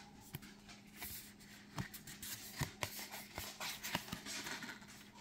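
Oracle cards being handled: soft taps and light rustles of card stock as cards are moved and laid down, a handful of small clicks over a faint steady hum.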